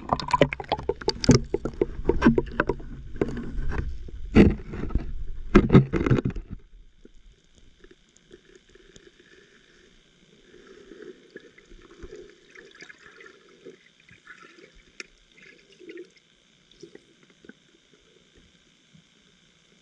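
Water splashing and slapping against an action camera at the water surface, in loud sharp strokes. About six and a half seconds in, the camera goes under and the sound drops to faint, muffled underwater bubbling and gurgling.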